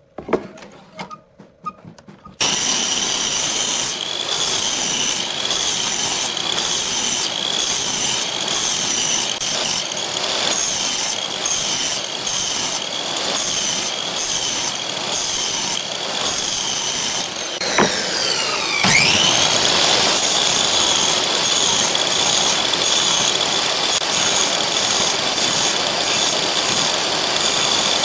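Electric compound miter saw starting about two seconds in, after a few knocks, and then running continuously with a high motor whine. Its blade is lowered into a wooden board over and over, nibbling a row of shallow kerfs to cut out a notch. About two-thirds of the way through, the motor's pitch dips sharply and climbs back up.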